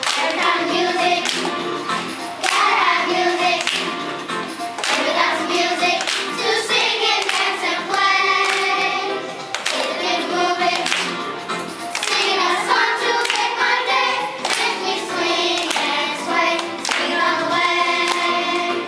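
A group of young children singing together, clapping their hands in time with the song.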